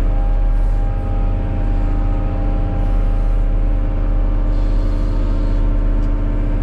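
Caterpillar 140 motor grader's diesel engine running steadily under load while blading, heard from inside the cab as a constant low drone.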